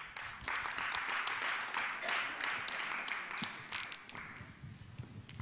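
Audience applauding, swelling about half a second in and dying away near the end.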